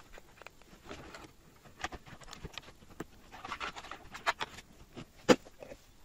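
Faint, irregular clicks and rustles of a plastic bottle and a plastic cup being handled, with one sharper knock about five seconds in.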